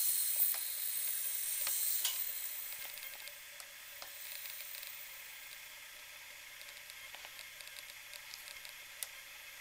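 Compressed air hissing at a portable air compressor's pressure regulator as the regulator is opened and turned up to about 60 psi. The hiss is loudest in the first couple of seconds, then fades to a faint steady hiss with a few light ticks.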